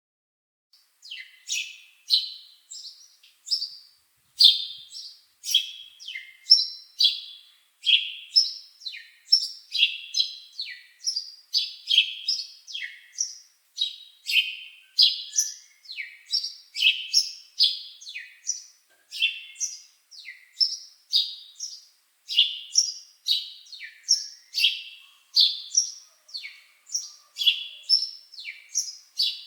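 A bird chirping steadily: a long run of short, sharp chirps, about two to three a second, each sliding quickly down in pitch, with clean silence between them.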